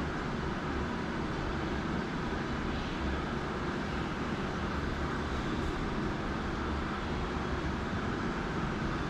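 Steady low rumbling noise that holds even, with no distinct events.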